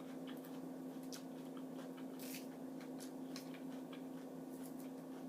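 Scattered soft clicks and smacks of eating: mussels being chewed and picked at, over a steady low hum.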